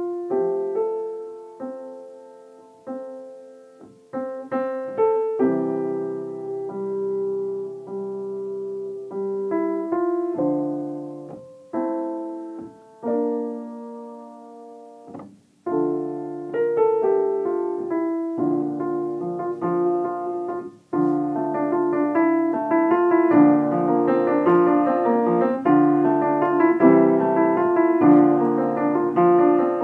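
Solo piano playing a slow piece of held chords and melody notes. After a brief pause about halfway through, the playing grows fuller and busier.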